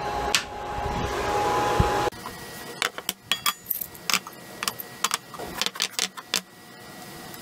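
A miter saw running for about two seconds and stopping abruptly, then a string of light metallic clinks and knocks as iron pipe floor flanges and a steel dog bowl are handled and set down on a wooden workbench.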